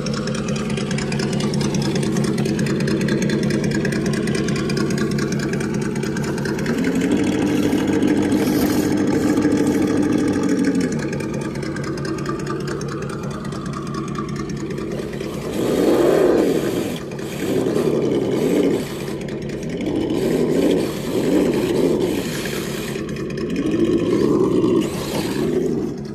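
Electric motors and geared drivetrains of RC crawler trucks whining. The pitch holds steady, steps higher for about four seconds, then rises and falls in a string of throttle bursts through the second half.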